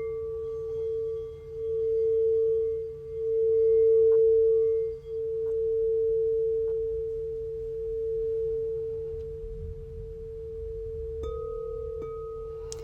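Crystal singing bowls ringing: one steady low tone swells and fades in slow waves. About eleven seconds in, a second, higher-pitched bowl is struck and rings along with it.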